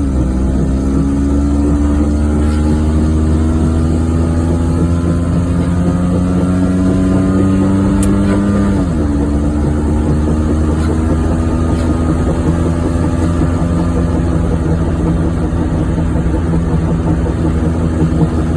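1994 Geo Metro's small three-cylinder engine pulling the car along, its pitch climbing slowly as it gains speed, then dropping sharply at a gear change about nine seconds in before rising again. Under it runs a steady low road drone from a car with a bad wheel bearing.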